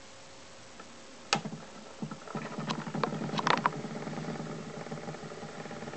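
Spring-wound motor of a Victor Type II gramophone starting the turntable: a sharp click a little over a second in, a few more clicks, then a steady low mechanical whirr as the platter spins. The record is not yet sounding.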